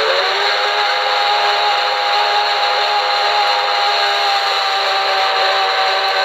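QSI Maxx Traxx Heartland Steam sound system playing a chime steam whistle: one long blast of several notes together, sliding up in pitch as it opens and down as it closes near the end, over a steady hiss of steam.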